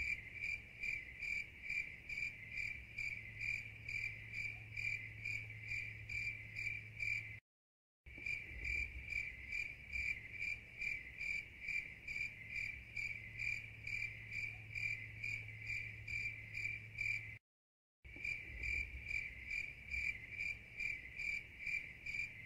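Looped cricket-chirping sound effect: evenly spaced chirps on one high pitch over a faint low hum. It cuts out to dead silence for about half a second twice.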